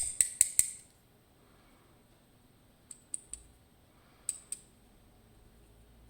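Small metal lock parts and tools clicking against each other while a Dierre New Power lock is taken apart. Four sharp metallic clicks come in quick succession at the start, then a few more, scattered, about three and four seconds in.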